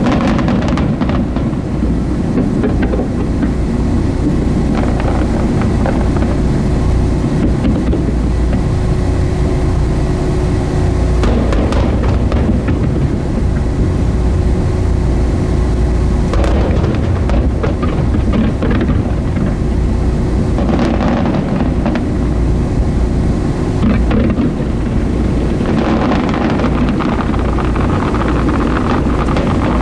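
Steady low rumble aboard a boat, with a constant hum, broken by several booms of aerial fireworks bursting, about five in all.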